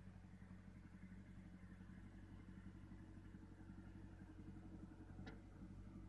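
Near silence: a faint, steady low hum, with one short, sharp sound about five seconds in.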